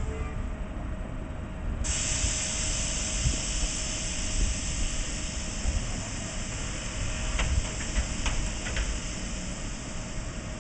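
Bombardier TVR rubber-tyred guided tram standing at a stop, with a steady hum and low rumble. A steady hiss switches on suddenly about two seconds in and keeps going, with a few faint clicks near the end.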